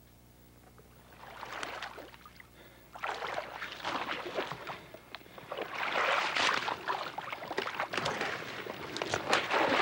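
Dry brush rustling and twigs crackling and snapping close to the camcorder microphone as the camera pushes through leafless undergrowth. It is quiet for the first second, then picks up, and grows louder and busier from about three seconds in.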